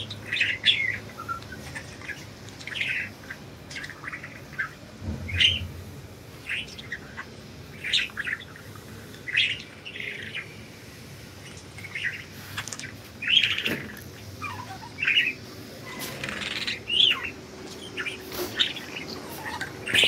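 Pet budgerigars chirping: short, high chirps coming irregularly, roughly one every second or two.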